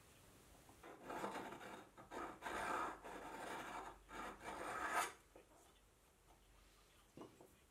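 Hand file rasping on a small metal insert, about five strokes in a row between one and five seconds in. The insert is being filed down to a snug fit in the tool post's T-slot.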